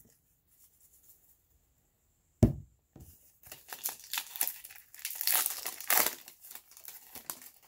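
A single thump about two and a half seconds in, then a foil baseball card pack wrapper being torn open and crinkled for several seconds.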